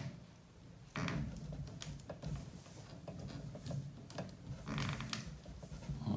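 Hard plastic parts of a Traxxas Slayer Pro 3.3 RC truck chassis clicking and knocking as hands force the fuel tank and its retaining clip into place. Louder clusters of clicks come about a second in and again around five seconds.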